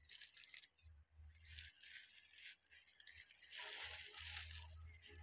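Thin clear plastic bag crinkling in a few short bursts as it is handled and pulled off a microscope, the loudest burst near the end.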